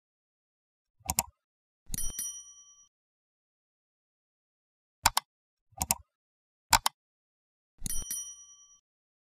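Sound effects for an animated like-and-subscribe button: a mouse click, then a bell-like ding about two seconds in. Three more clicks follow, then a second ding near the end. Each ding rings out briefly.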